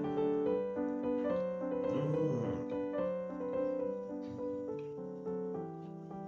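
Background music: a soft piano melody of steady held notes.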